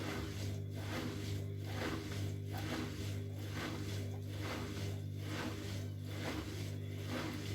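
Bosch Maxx front-loading washing machine with its drum turning slowly under a steady motor hum, the laundry swishing round about once a second, as the machine works to even out an unbalanced load before spinning.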